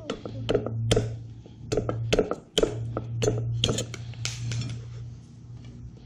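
Machete blade striking and cutting a salak palm stem against a wooden chopping block: a quick, irregular run of sharp knocks, about two or three a second, thinning out near the end.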